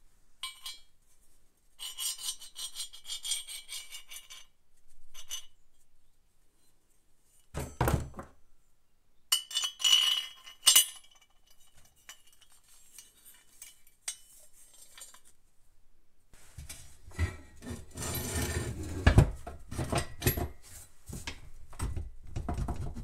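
Steel square tubes and bolts handled on a wooden workbench: metal scraping and rubbing, sharp clinks, and knocks of steel on steel and wood, busiest and loudest in the last several seconds.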